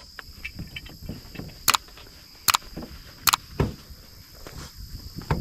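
Gear being handled in an aluminium boat: small knocks and rattles, with three sharp clicks under a second apart in the middle, over a steady high-pitched buzz.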